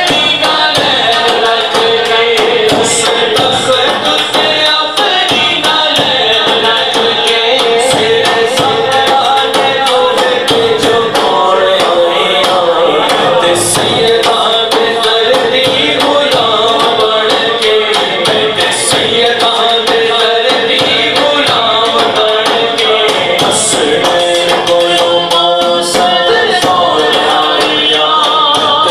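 A man singing a Punjabi Islamic devotional song into a microphone, the melody held and ornamented without a break, over light percussion with occasional sharp jingly strikes.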